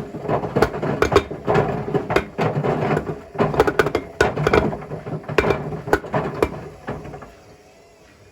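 Washing machine drum tumbling with a brick inside, the brick knocking and clattering irregularly against the drum; the clattering stops about seven seconds in.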